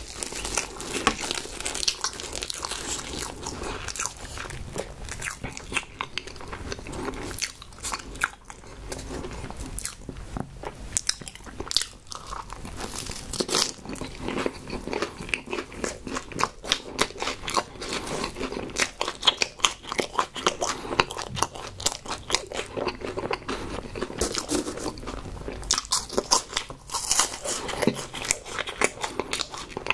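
Close-miked eating: a man biting and chewing small crisp baked choux-puff snacks (Oven Home Run Ball), with many irregular crunches and wet chewing.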